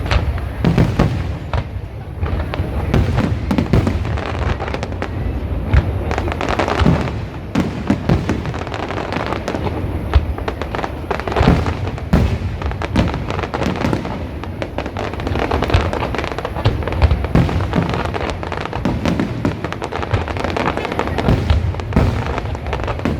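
Aerial fireworks display going off without pause: a dense run of bangs and crackles layered over a continuous low rumble of booms.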